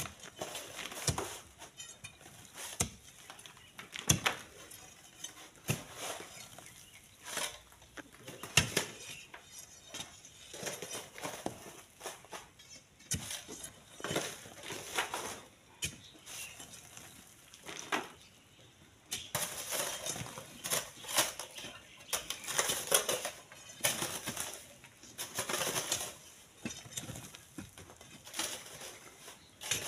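Irregular scrapes and clinks of hand tools working volcanic sand and gravel: an iron bar prying sand from a cliff face and hoes scraping sand into a metal wheelbarrow. Loose sand slides down in between.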